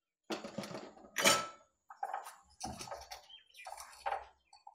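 A spoon clattering and scraping against a stainless-steel bowl while spices are added, in about six short bursts, the loudest about a second in.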